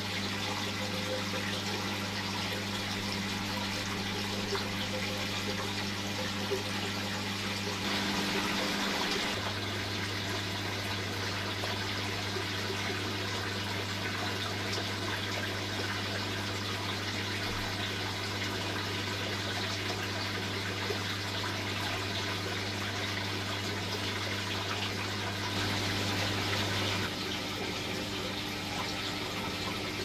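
Aquarium filtration running: a steady rush of moving water over a constant low electrical hum from the pump. The texture shifts slightly a few times.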